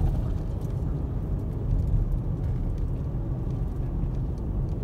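Steady low rumble of a car driving along a highway: road and engine noise with no change in speed.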